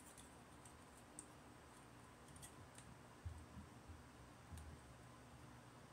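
Near silence with a few faint, scattered clicks and a couple of soft knocks from plastic model kit parts being handled and fitted together.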